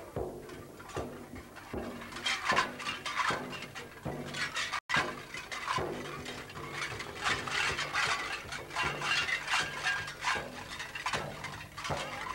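Shaman's frame drum beaten at an uneven pace, with metallic clinking and jingling throughout. The sound drops out for a moment about five seconds in.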